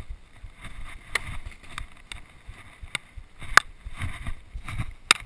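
Paintball markers firing: about seven sharp pops at irregular intervals, over rustling of dry straw and clothing against the body-worn camera.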